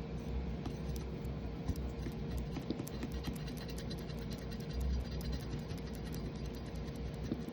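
Close scratching and handling noise with many small sharp clicks, over a steady low hum.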